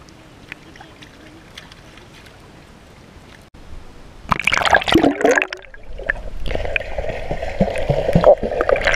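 Pool water heard through an action camera: faint lapping and small splashes at first, then loud splashing about four seconds in, then from about six seconds on the muffled, steady rumble and bubbling of being underwater.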